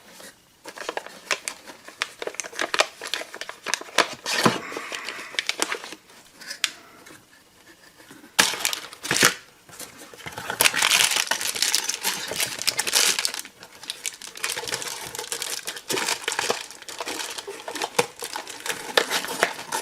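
Packaging being crinkled and torn by hand, with scattered sharp clicks and knocks from handling the box and its contents.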